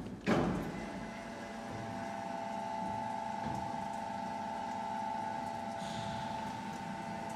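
A sharp clunk about a third of a second in, then the Risco TR 130 grinder's electric drive runs with a steady hum and a high, even whine.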